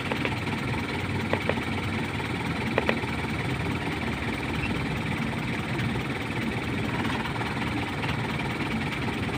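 Isuzu 4HL1 four-cylinder diesel engine idling steadily, with a few light clicks in the first three seconds.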